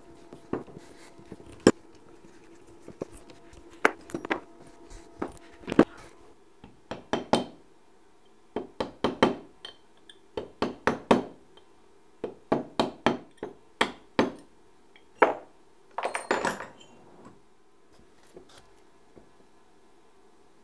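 Steel parts of a three-jaw lathe chuck clinking and knocking against each other and the wooden workbench as the chuck is taken apart. The sharp, irregular clanks come in quick clusters, thickest from about a third of the way in until near the end, over a faint steady hum.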